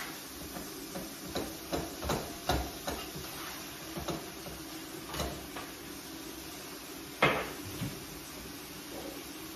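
A spatula knocking and scraping in a frying pan of minced meat, in a string of light irregular knocks. About seven seconds in comes one sharp, loud knock, a kitchen wall-cupboard door being opened, followed by a smaller one.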